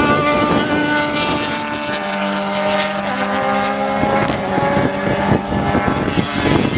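Suzuki-powered Radical SR3 RS race cars at speed: a high-revving engine note that slides slowly down in pitch as a car goes past and away, with wind buffeting the microphone at the start and near the end.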